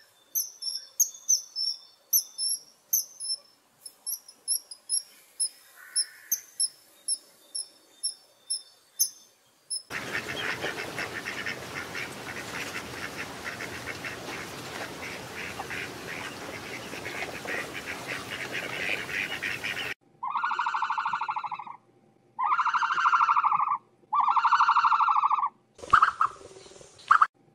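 Common kingfisher giving short, shrill, very high calls, about two a second, for the first ten seconds. Then ten seconds of dense, even noise, and then four loud, drawn-out pitched calls of about a second each, with a brief sharp sound just before the last one.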